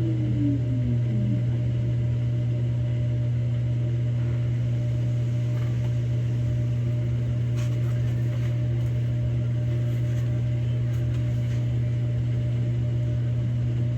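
Samsung Grande AI front-loading drum washing machine running its spin-only cycle: a steady, loud hum as the drum spins at speed. A falling whine dies away in the first second or so.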